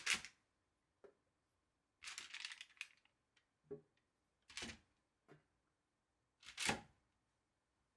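Sweet potatoes set down one at a time on a parchment-lined tray: a handful of soft, brief knocks and paper rustles spaced about a second apart, with a longer rustle of the paper around two seconds in.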